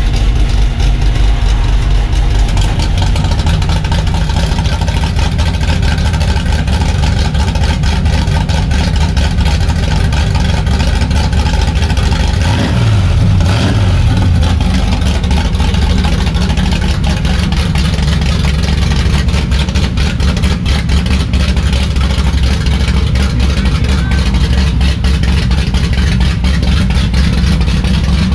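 Cammed 454 big-block Chevy V8 running steadily after its rebuild, with one short rev about halfway through.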